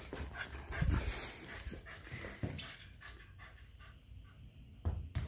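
A beagle mouthing and nosing a tennis ball, with many short chewing clicks and scuffs, then panting. Two dull thumps, about a second in and near the end.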